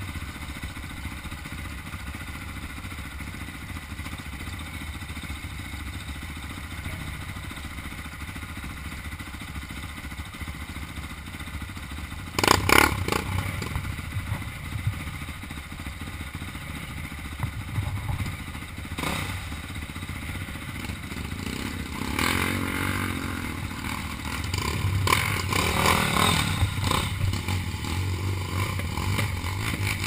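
Off-road dirt bike engines idling steadily, with a brief loud clatter about twelve seconds in and engines revving louder in the second half as the bikes move off into the stream crossing.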